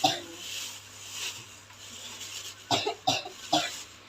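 A patient coughing hard: one cough right at the start, then three short coughs in quick succession near the end. It is the persistent, abnormal cough that the healer blames on a spirit disturbance.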